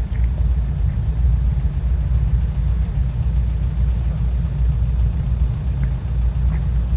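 Wind buffeting the microphone: a loud, low, unsteady rumble with no distinct engine or fan tone.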